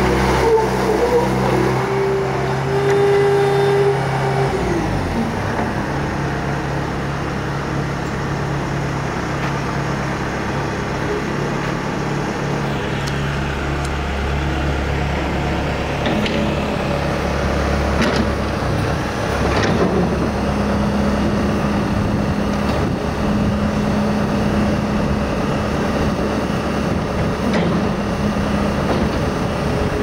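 2007 Bobcat S300 skid steer's four-cylinder diesel engine running steadily while the machine drives and lifts its loader arms and bucket. A higher pitch in the first few seconds drops away about four seconds in, a few sharp clicks come in the middle, and a steady higher tone joins about twenty seconds in.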